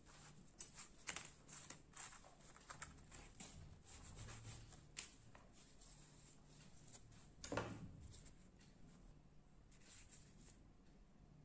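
Faint scattered clicks and light taps, with one louder knock about two-thirds of the way in.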